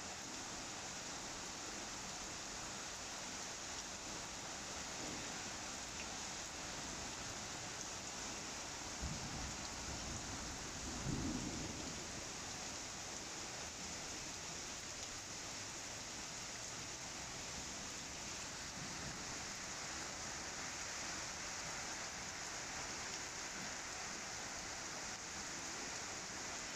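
Light rain falling steadily, with a low rumble of thunder swelling twice about nine to twelve seconds in.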